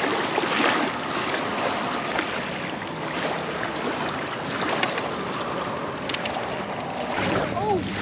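Steady rushing noise of wind on the microphone and water at the shoreline. A brief clicking comes about six seconds in, and a few short rising-and-falling tones near the end.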